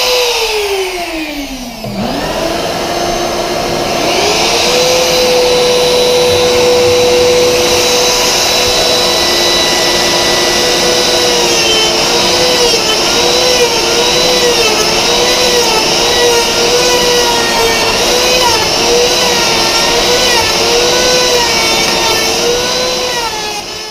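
Compact router cutting a scarf joint in plywood, with a shop vacuum running steadily on its dust hose. The router winds down at the start, restarts about two seconds in and settles at speed. From about halfway its pitch wobbles up and down as it is pushed through the cut.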